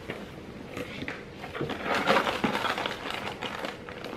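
Rustling and crinkling of a cardboard snack box and the wrapped snacks inside as it is handled and dug through, densest from about one and a half to three and a half seconds in.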